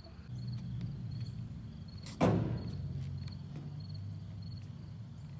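A single loud thump on a hollow skate ramp about two seconds in, ringing briefly, over a low rumble that sets in under a second in. Faint regular chirps, about one and a half a second, run throughout, like an insect.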